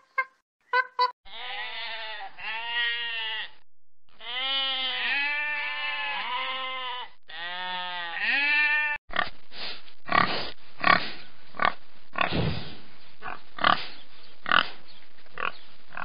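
A few short, sharp monkey calls, then sheep bleating, several long wavering bleats one after another. About nine seconds in, this gives way to pigs grunting, many short rough grunts in quick succession.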